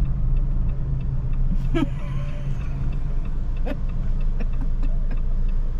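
Steady low rumble of a moving car heard from inside the cabin: engine and tyre road noise. Two brief short sounds break in, about two seconds in and again near four seconds.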